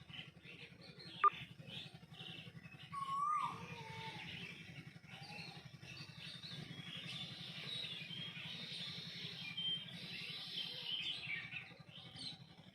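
Small birds chirping rapidly and continuously, with a sharp click about a second in and a louder falling call about three seconds in, over a steady low hum.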